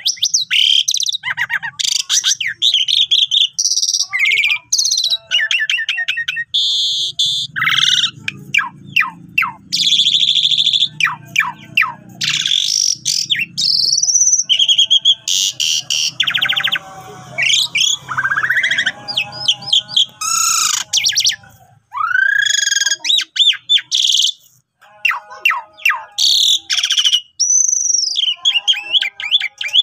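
Asian pied myna in full song: a fast, varied run of rising and falling whistles, chirps, rapid clicks and harsh rattling notes, with only brief pauses.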